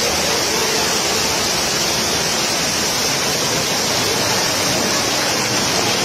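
Muddy floodwater rushing down a street: a steady, loud sound of fast-flowing water.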